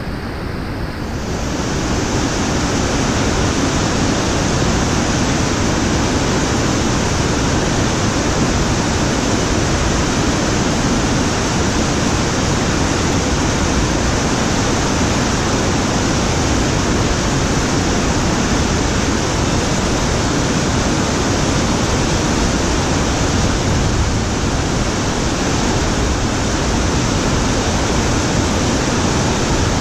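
Loud, steady rush of a big whitewater rapid, heavy river water pouring and churning over rock, building up over the first second or two.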